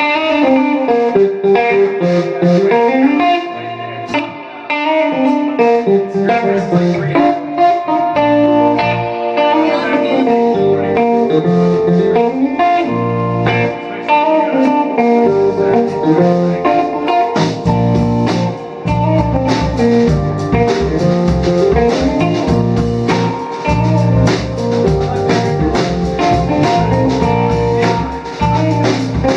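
A small rock band playing live: electric guitar, electric bass and a drum kit. The playing gets fuller, with steady drumming and bass, from a little over halfway.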